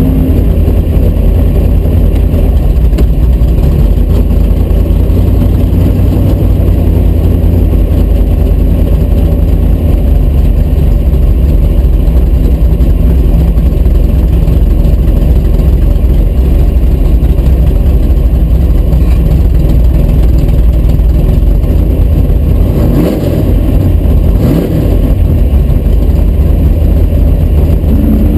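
A 1972 Dodge Dart drag car's engine idling loudly with a steady low rumble, heard from inside the cabin. Near the end the engine is revved briefly twice.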